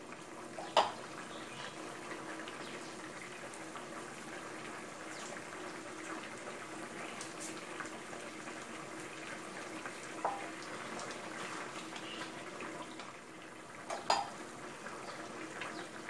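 Green curry bubbling at a simmer in a metal pot, with a sharp clink about a second in and two softer ones later.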